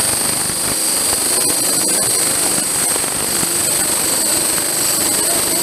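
Electric coffee grinder running steadily under load as it grinds roasted coffee beans to powder: a dense, even mechanical rush with a high-pitched whine on top.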